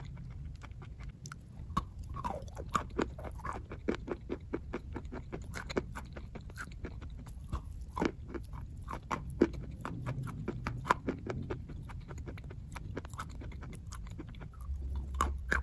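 A person chewing dry chalk: a dense, irregular run of crisp crunches and crackles, with a few louder snaps along the way.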